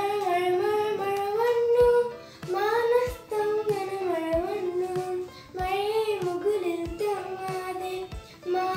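A young girl singing a Malayalam children's poem about rain, in short melodic phrases with brief breaks between them.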